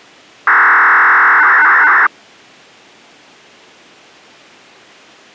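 Municipal disaster-prevention radio transmission heard through a receiver: a loud burst of signalling about a second and a half long, a steady tone that turns into a warbling, chattering signal and cuts off sharply. It is the start signal that opens the broadcast, and is followed by steady radio hiss from the open channel.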